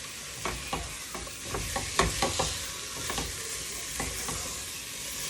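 Chicken pieces sizzling as they brown in a hot pot, with a utensil knocking and scraping against the pot several times as the meat is moved around.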